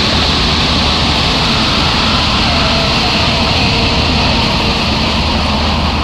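Death-industrial noise music: a loud, steady wall of distorted droning noise over a deep, constant rumble, with a hissing band high up and no beat.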